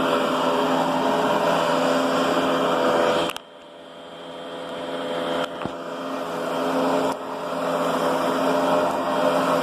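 Riccar Brilliance upright vacuum running steadily with a motor whine. About a third of the way in the sound drops sharply, then builds back over a few seconds to full level.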